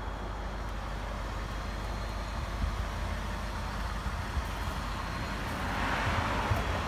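Road traffic noise: a steady low rumble, with a vehicle passing and swelling louder near the end.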